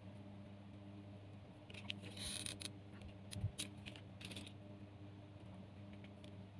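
Thin bamboo skewers clicking and rattling on a tabletop as they are handled, with a burst of rustling and clicking about two seconds in and a sharper knock about halfway through. A faint steady low hum runs underneath.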